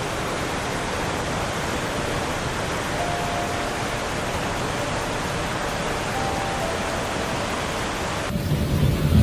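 Fast-flowing floodwater rushing through a street, a steady even noise of torrenting water. About a second before the end it gives way abruptly to a louder low rumble.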